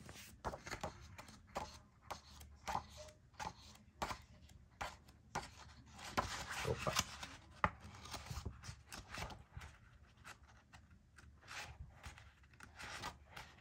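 Pages of a colouring book being turned by hand: irregular paper rustles and flicks as the leaves are leafed through.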